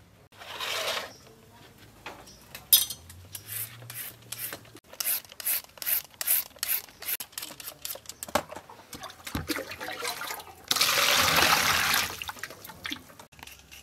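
Julienne peeler scraping down a carrot in a quick run of short rasping strokes, two or three a second. Near the end, water pours and splashes into a plastic basin for about a second as the carrot is washed.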